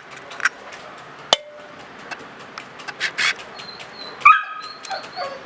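Eggs cracked against the rim of a mixer-grinder jar, giving a few sharp taps. Near the end a dog gives a short whimper that falls in pitch.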